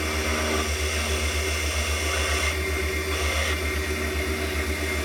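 Electric motor of a DEFU key cutting machine running steadily while it cuts the inner cuts of a Mul-T-Lock key blank, a constant hum with a brief higher hiss about halfway through.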